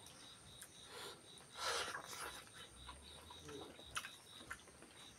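Close-up eating sounds: bare hands working rice and meat on a banana leaf, plus chewing. There is a soft rustling scrape about one and a half seconds in and a sharp click near four seconds.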